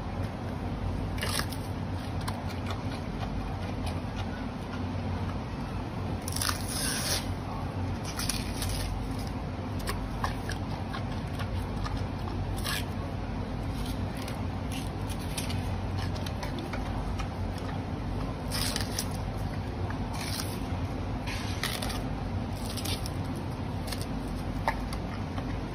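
Panda crunching and chewing carrots: irregular crisp crunches over a steady low background hum.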